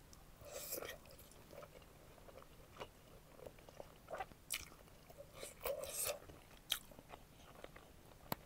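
Close-miked eating of a juicy pork momo (steamed dumpling): soft, wet chewing with scattered sharp mouth clicks and smacks, all faint.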